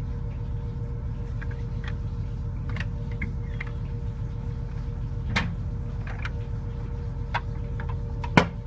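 Fishing cutter's engine running steadily with a low drone and a steady hum, under scattered small clicks and knocks from handling. There is a sharper knock about five seconds in and the loudest one near the end.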